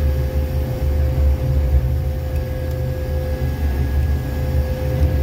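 Jackson 6700 track tamper running steadily: a low engine drone with a steady whine over it, heard from the operator's seat while the work head sweeps mud out of the cribs.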